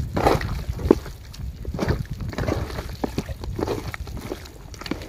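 Chicken pieces being mixed by hand into a thick, wet spice-and-curd marinade: uneven squelching and sloshing with short sharp squishes.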